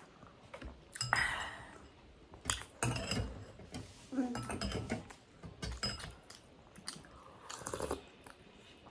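Cutlery clinking and tapping against plates and soup bowls in scattered short knocks while people eat. A brief voice sound comes a little before halfway through.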